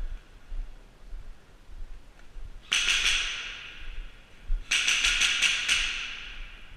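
Airsoft guns firing two short bursts: a few rapid shots, then a longer burst of about six, each burst ringing off in a hard-walled room.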